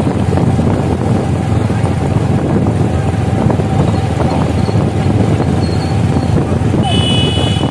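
A vehicle's engine running steadily while it travels, with heavy wind rumble on the microphone. Near the end there is a brief high-pitched tone.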